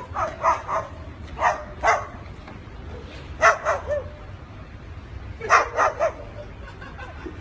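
A cockatoo mimicking a dog's bark: short barks in quick groups of two or three, four groups with pauses between them.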